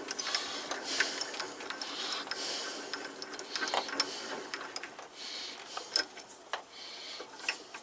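Irregular metallic clicks and small knocks from parts of a wood lathe being adjusted and backed off by hand, with no motor running.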